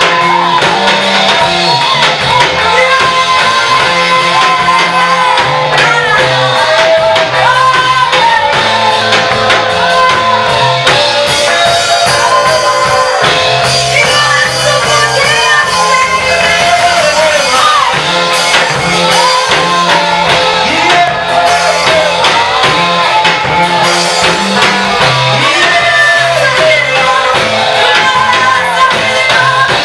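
Praise and worship music: voices singing over a band with guitar and a stepping bass line, loud and steady.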